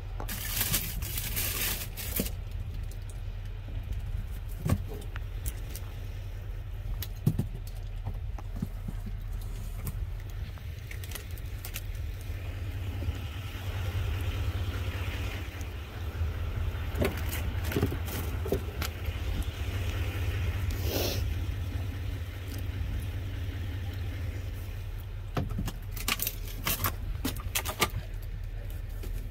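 Cardboard boxes and plastic-wrapped food rustling and clattering as they are moved about in a dumpster, in scattered crackles with louder clusters near the start and near the end, over a steady low rumble.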